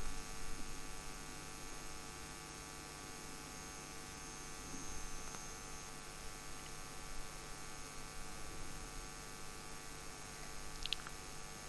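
Low, steady electrical hum with faint hiss: the recording's background noise, with no speech.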